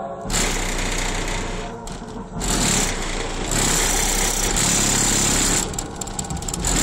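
Chevy pickup truck's engine running, its level swelling and dropping back several times.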